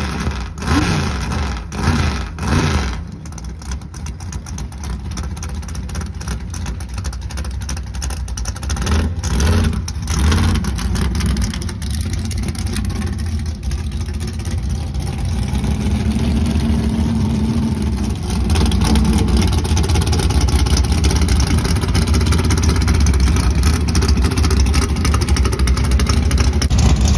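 Mud-drag truck's big race engine, exhaust through long headers, blipped in several sharp revs, then running steadily with another rev partway through. It gets louder from about two-thirds of the way in as the truck pulls away.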